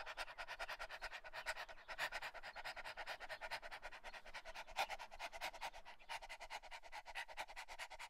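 A dog panting quickly: short breaths in a fast, even rhythm.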